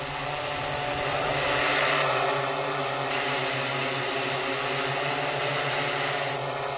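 Agricultural multirotor drone's rotors humming steadily, growing a little louder about two seconds in.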